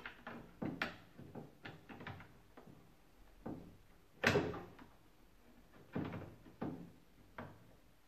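Irregular plastic clicks and knocks as the electronic control board housing of an Indesit washing machine is pushed into its clips and mounts; the loudest knock comes about halfway through.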